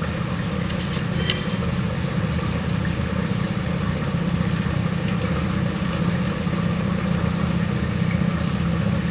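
Steady low mechanical hum that holds an even level throughout.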